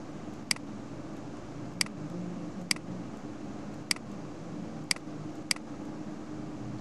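Computer mouse clicking six times at irregular intervals, sharp single clicks over a steady low background hum.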